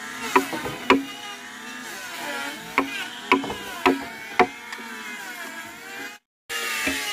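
Sharp knocks of blows struck on timber, six of them at uneven spacing, over an engine running in the background with a wavering pitch.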